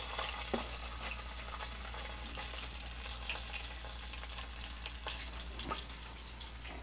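Battered strips of bacon frying in hot oil in a skillet: a steady crackling sizzle, the oil now hot enough to fry. A couple of brief knocks stand out, about half a second in and again near the end.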